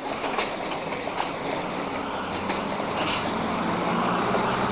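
A vehicle passing, with a low engine hum and rolling noise that swell to a peak near the end, and a few light clicks.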